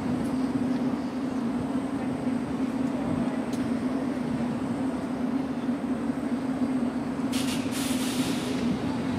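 London Underground S Stock train standing at the platform with its doors open, its onboard equipment running with a steady hum. A brief hiss comes about seven seconds in.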